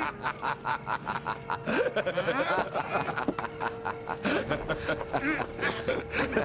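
A man snickering with a quick run of short laughs, over a steady held note of background music.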